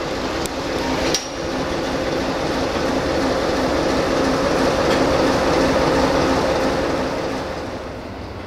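Diesel-electric shunting locomotive of the CFR 060-DA (LDE 2100) class running its Sulzer diesel engine, a steady drone that grows louder then eases off as it moves through the station. A sharp metallic click comes about a second in.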